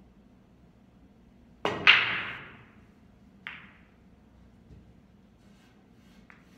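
Pool break shot at a ten-ball rack: the cue tip clicks on the cue ball, and a quarter second later the cue ball hits the rack with a loud clack and a short rattle of balls scattering. A single sharper clack of balls colliding follows about a second and a half later, then a few faint taps.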